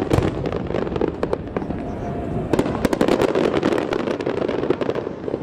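Aerial fireworks bursting in rapid volleys of bangs and crackles, densest right at the start and again in a thick cluster about halfway through.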